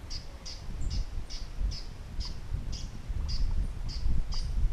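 A small creature calling: one short, high chirp repeated evenly about twice a second, over a low rumble.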